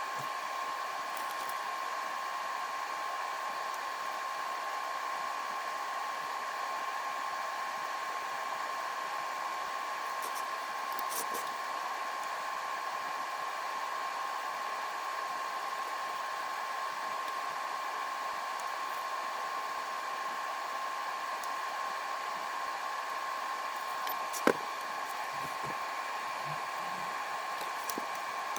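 A small electric fan or blower running steadily: an even hiss with a constant whine. One sharp click comes near the end.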